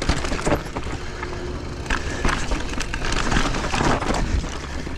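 Mountain bike rattling down a rocky technical trail: tyres and frame clattering over rocks with irregular knocks, over a steady low rumble of wind on the microphone.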